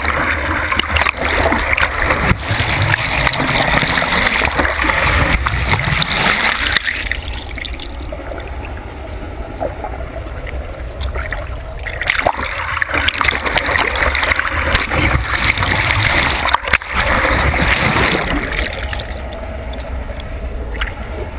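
Water rushing and splashing hard around a GoPro camera on a scuba board as it cuts through the lake surface. The sound turns muffled and dull while the camera runs underwater, about seven seconds in and again near the end, with a splashy stretch in between.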